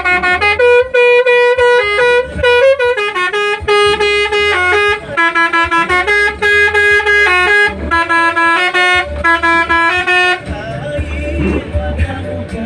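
Telolet horn on an ALS bus playing a quick melody, the notes stepping up and down several times a second, over a pulsing low tone. The melody stops about ten and a half seconds in, and quieter music carries on.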